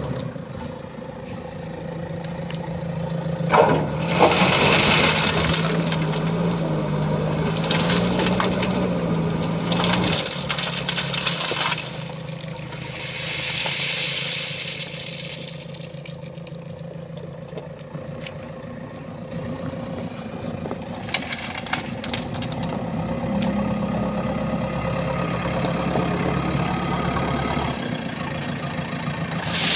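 JCB 3DX backhoe loader's diesel engine running, revving up under hydraulic load twice, with a steady thin whine over it. There are sharp knocks and clanks of scrap metal being loaded, and a couple of short rushes of rattling noise.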